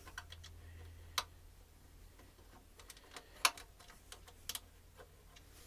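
A few scattered light clicks and taps of metal on metal, the two sharpest about a second in and about halfway through, as a bolt is worked against a bracket on a Hayterette mower engine and won't line up.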